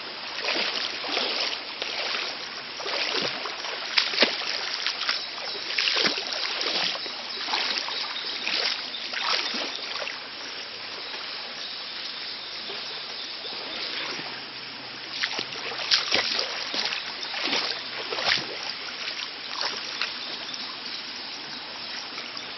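Shallow stream water splashing and sloshing with irregular wading steps, over the steady rush of a running jungle stream. The splashes come in clusters, thinning out in the middle and picking up again later.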